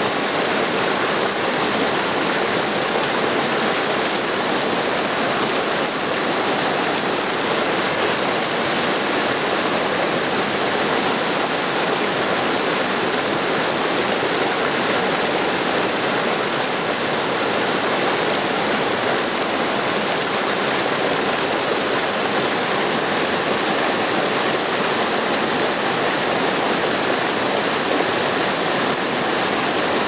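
Small waterfall: white water cascading over boulders in a mountain stream, a steady, even rush with no breaks.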